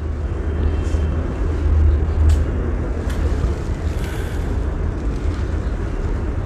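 Steady low rumble with a faint hiss, broken by a few light clicks in the first half.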